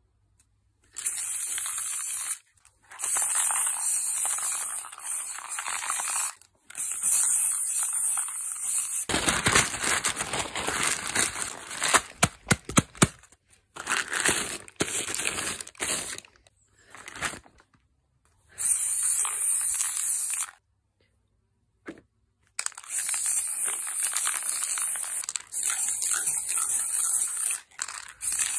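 Aerosol spray paint cans hissing in bursts of a few seconds each, starting and stopping sharply. In the middle, newspaper crinkles and crackles as it is crumpled and pressed by hand onto the wet paint.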